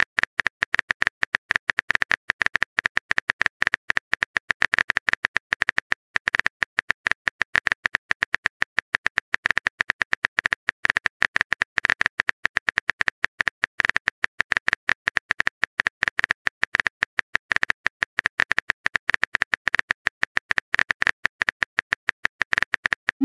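Keyboard typing sound effect of a texting-story chat app: rapid, irregular clicks that play while a long message is typed out.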